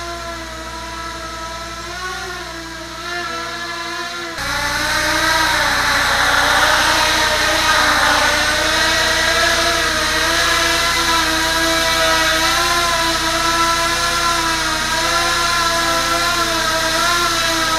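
A small racing quadcopter's motors and propellers whine steadily as it hovers low, the pitch wavering slightly with the throttle. The sound gets suddenly louder about four seconds in.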